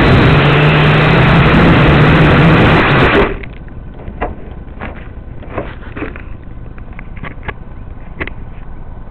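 Micro quadcopter's motors and propellers buzzing loudly, picked up by its onboard camera, cutting off suddenly about three seconds in as the quad comes to rest upside down after a crash. After that only scattered light clicks and taps.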